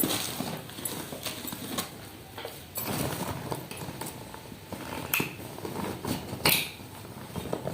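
Packaging and gift items being handled: rustling with scattered clicks and knocks.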